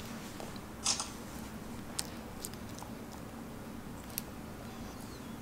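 Quiet handling of clear tape and a strain gauge being laid onto a metal beam: a short rustle about a second in, then a few light clicks, over a steady low hum.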